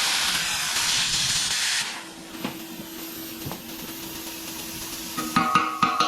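Plasma cutter hissing as it cuts through hardened Hardox steel, stopping about two seconds in. After that a low steady hum with a few light knocks, and near the end music with a beat starts.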